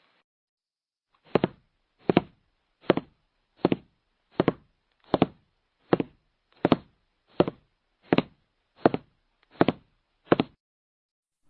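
Footsteps: a steady walk of about thirteen even steps, each a sharp knock, starting about a second in.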